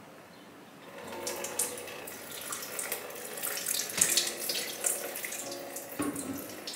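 Water being poured onto a potted houseplant, splashing and trickling, starting about a second in.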